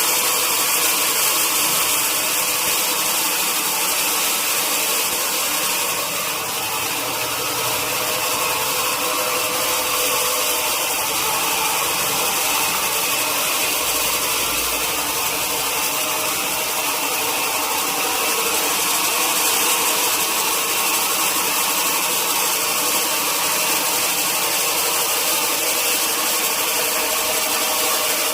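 Sawmill machinery running steadily: a constant loud mechanical noise with a strong high hiss and several steady hums, unbroken throughout.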